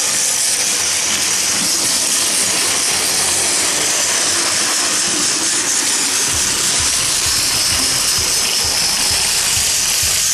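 Steady, loud hiss, like rushing air, with an irregular low rumble joining about six seconds in.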